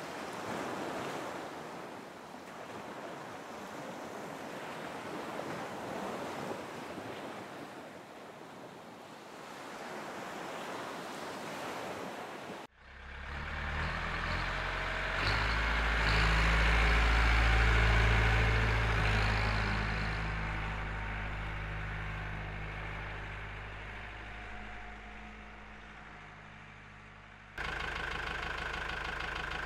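Ocean surf washing in for about twelve seconds, then after an abrupt cut a motor engine that swells and fades away, and near the end another steady engine hum.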